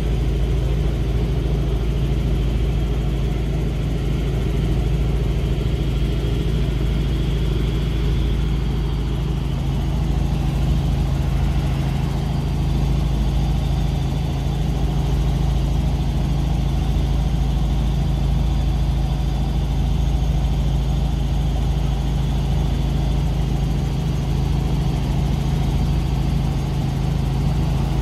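Helicopter rotor and engine running steadily in flight, heard from on board as a loud, even low drone with a constant hum.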